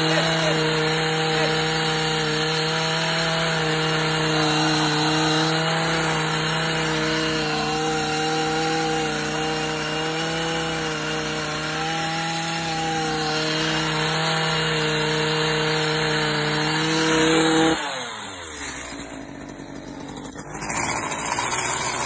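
A small motor running at a steady pitch, then switched off about eighteen seconds in, its pitch falling as it winds down.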